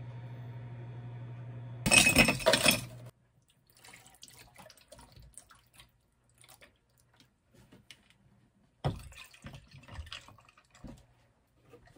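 A drink being made in a glass. A steady hum opens it, then ice cubes clatter loudly into the glass about two seconds in. Faint trickling follows, and near the end liquid is poured over the ice with splashing and clinking.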